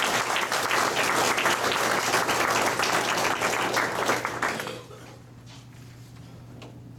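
Audience applauding, dying away about four and a half seconds in, over a steady low hum.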